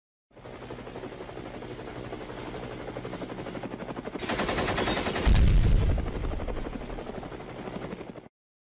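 Fast, even mechanical rattle, like a construction machine running or hammering. It builds to a loud, deep surge about two-thirds of the way through, eases off, then stops abruptly.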